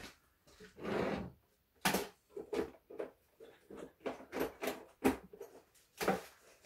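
Irregular clicks, knocks and scrapes of tools and parts being handled off to the side of the engine, a dozen or so short sharp sounds with a few longer rustles between them.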